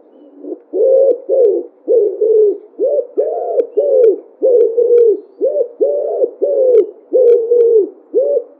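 Pigeon cooing: a steady run of short, low coos, about two a second.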